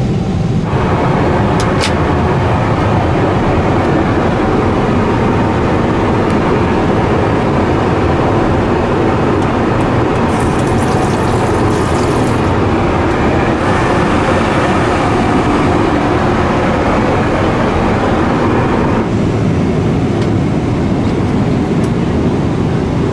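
Steady cabin noise of a Boeing 777-300ER in flight, the constant rush of engines and airflow. About halfway through, water from a lavatory tap runs briefly for a couple of seconds.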